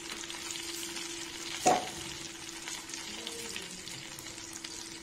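Vegetables sizzling in hot oil in a non-stick wok while a spatula stirs them, with one sharp clack of the spatula against the pan about a second and a half in.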